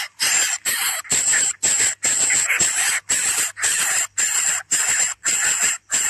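Coucal nestlings begging, a run of harsh hissing rasps repeated about twice a second.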